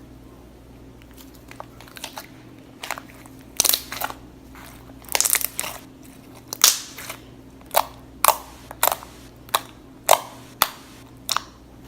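Slime being pressed and squeezed by hand, giving short, sharp crackles and pops. They come sparsely at first, then about two a second through the second half.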